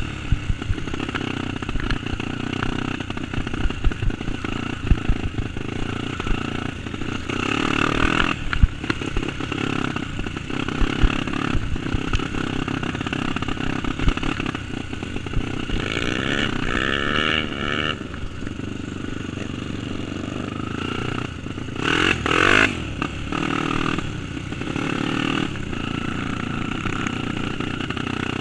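Single-cylinder trail motorcycle engine running steadily under way, with short low thumps throughout. It swells louder twice in the second half, the pitch wavering.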